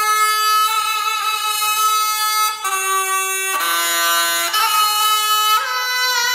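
Music: a reedy wind instrument plays long held notes, stepping down in pitch a little past the middle and climbing back up near the end.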